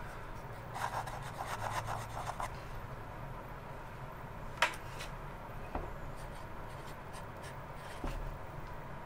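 Sailor Zoom-nib fountain pen scratching across paper in quick writing strokes, busiest for the first couple of seconds and fainter after, with one sharp tick about four and a half seconds in.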